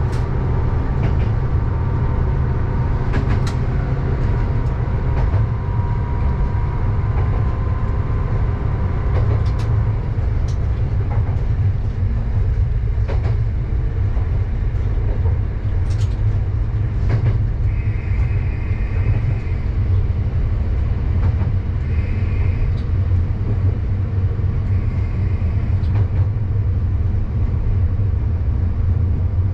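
Diesel railcar running steadily along a single-track local line, heard from inside the car: a steady low engine drone with occasional clicks of the wheels over rail joints.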